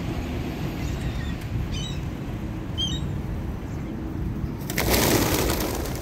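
A flock of feral rock pigeons takes off together about five seconds in, a loud clatter of many flapping wings. Before that there are two short bird chirps over a steady low background rumble.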